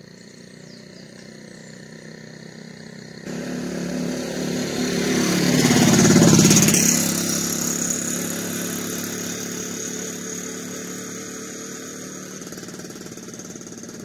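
A motor vehicle's engine passing along the road. It comes in abruptly about three seconds in, grows to its loudest a little past the middle with its pitch falling as it goes by, and then fades away.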